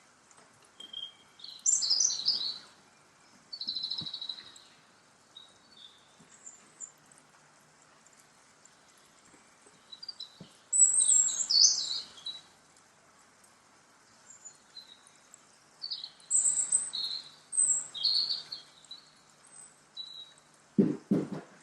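Birds chirping in short high phrases every few seconds. Near the end comes a quick cluster of dull low thumps.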